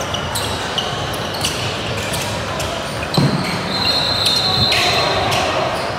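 Basketball play on a gym court: a ball bouncing irregularly and sneakers squeaking, the longest squeak starting about four seconds in, over background crowd voices.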